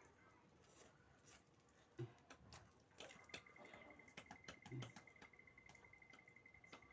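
Quiet room with faint scattered clicks and taps of eating and handling food, and a faint, steady, high pulsing tone from about three seconds in.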